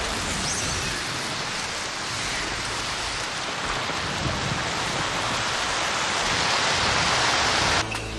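Animated sound effect of a mass of sand rushing and swirling as it closes into a dome: a steady hiss that builds slightly and cuts off suddenly near the end.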